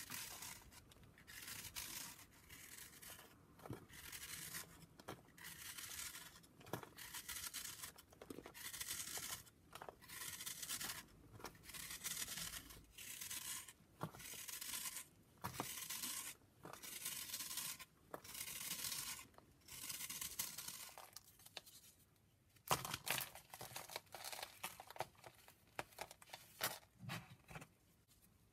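Block of gym chalk shaved in rhythmic scraping strokes, about one a second. After a short pause near the end, chalk is crumbled with sharper crackly crunching.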